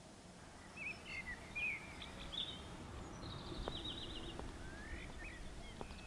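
Small songbirds chirping, with one fast trill, over a steady outdoor background noise. The birdsong starts about a second in.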